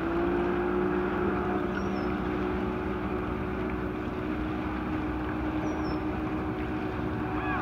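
Motorboat engine running steadily at constant speed, a low even drone over a hiss of wind and water.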